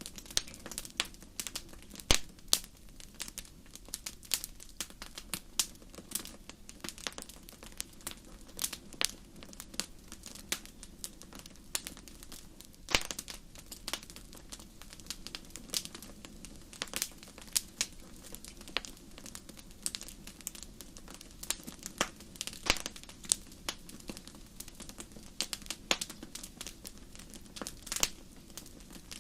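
Wood fire crackling in a fireplace: irregular sharp pops and snaps, several a second, some louder than others, over a low steady rumble of the burning fire.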